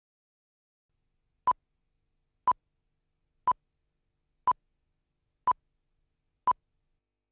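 Six short, identical mid-pitched beeps, one each second, starting about a second and a half in: the countdown pips of a broadcast tape's leader before the programme starts.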